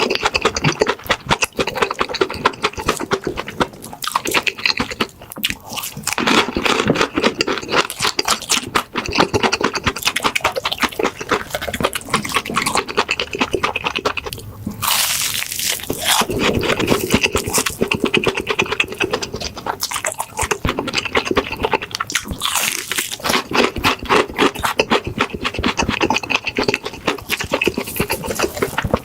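Close-miked chewing of crispy breaded and fried pork cutlet (tonkatsu): a continuous, dense crackling crunch of the fried crust, bite after bite.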